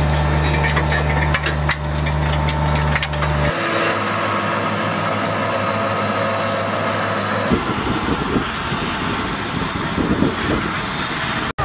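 Farm machinery running in three short clips: a compact loader's engine and rotary soil attachment with a steady low hum, then after about three and a half seconds a different engine, and from about halfway on a tractor pulling a seed drill over a field with a rougher, rattling sound.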